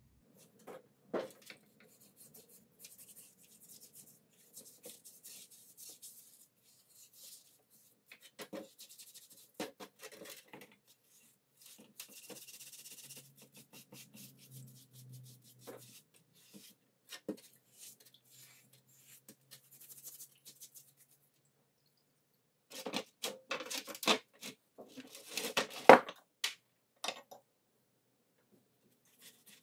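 Metal parts of an old hoist gearbox being handled and taken apart by hand: scattered rubbing, scraping and light clicks, then a run of louder knocks and clinks of metal on metal near the end.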